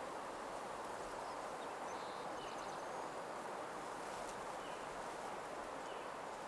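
Steady soft nature ambience, a continuous hiss like wind through leaves, with faint short bird chirps a few times in the middle.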